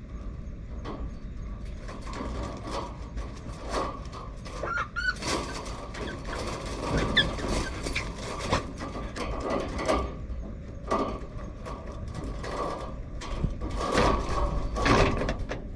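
Typhoon wind buffeting the kennel: a steady low rumble of wind, with irregular rattling and knocking of loose fittings that come thickest in the middle and near the end.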